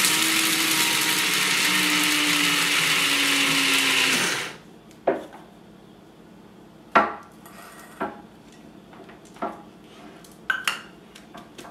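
Small electric blade coffee grinder running steadily for about four seconds, grinding raw sunflower seeds into flour, then stopping. A few short knocks and taps follow as the grinder is opened and tipped out over a glass bowl.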